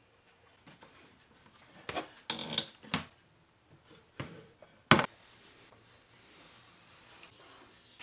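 Wooden blocks and a wooden handscrew clamp being handled on a workbench: a few light knocks and a short rubbing scrape, with one sharper knock about five seconds in.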